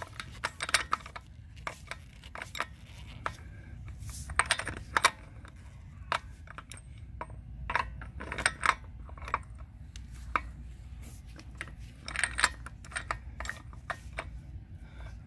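Irregular metallic clicks and clinks of a socket and flex-head breaker bar turning a loosened, staked axle hub nut off its threads, some clicks coming in quick clusters.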